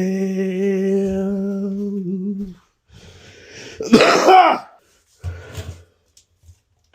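A man's voice holding a sung note for about two and a half seconds. About four seconds in there is a short, loud throat-clearing sound, then a couple of soft knocks.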